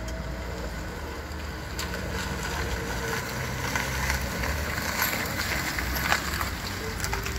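Wind rumbling on the microphone over outdoor street ambience, with a few faint clicks.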